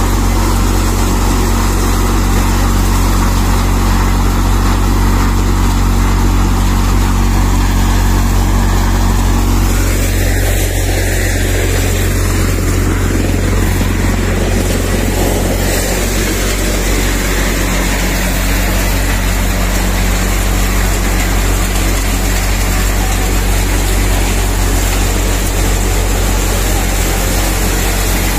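Tractor-powered four-fan maize thresher running: a steady engine drone beneath a loud, even rushing from the threshing drum and fans, which grows fuller about ten seconds in.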